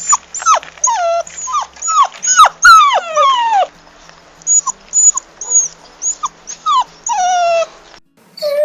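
Puppy crying: a quick series of short, high-pitched whimpers, each sliding down in pitch, with a short lull about four seconds in. Near the end the cries stop briefly and a different dog's crying starts.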